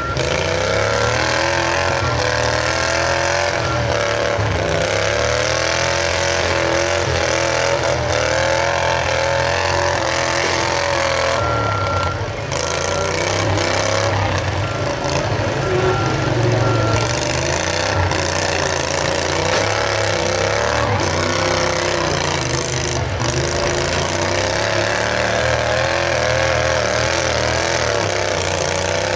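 Small engines of several riding lawnmowers running and revving together, their pitch wavering up and down as the mowers push and ram each other, with a few brief knocks.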